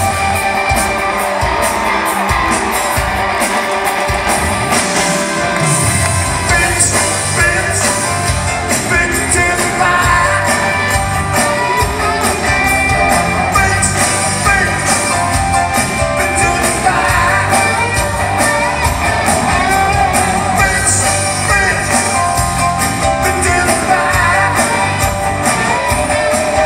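Live rock band music with singing, from the audience in a large hall. The bass and drums come in fuller about five seconds in.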